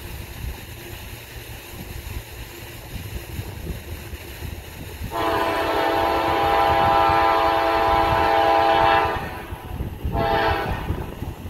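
Air horn of an approaching CSX AC44CW diesel locomotive sounding one long blast of about four seconds, starting about five seconds in, then a short blast about a second later, over a low rumble.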